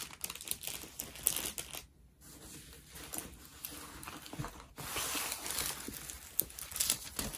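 Paper and plastic crinkling and rustling as a rolled diamond-painting canvas in its white paper wrap is handled and unrolled, with scattered small clicks. The rustling pauses briefly around two seconds in and grows louder and denser in the second half.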